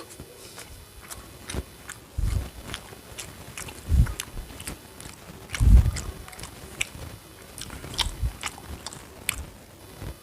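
Close-miked eating: a person chewing and biting food, with many short wet mouth clicks and a few louder low thumps, the loudest about halfway through.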